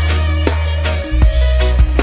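Reggae music with a heavy sustained bass line and drum kit hits, played as a sound-system bass test.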